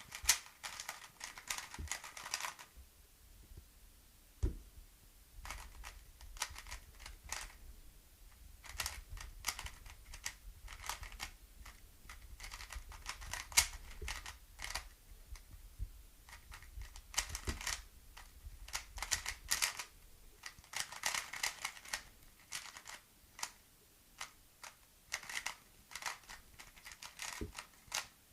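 MoYu Aolong GT 3x3 speedcube being solved by hand: quick runs of clattering plastic clicks as the layers are turned, broken by short pauses.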